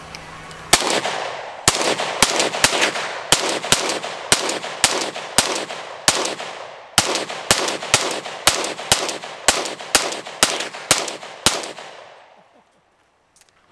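A Palmetto State Armory 5.7 Rock pistol, chambered in 5.7×28mm, firing about two dozen rapid shots in two quick strings, with a short pause about six seconds in. Each shot is a sharp crack with a brief echo.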